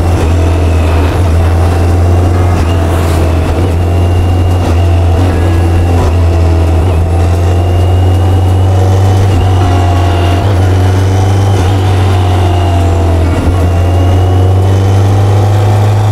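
BMW K1100LT motorcycle's inline-four engine running at road speed, a steady hum whose pitch rises and falls a little as the throttle changes.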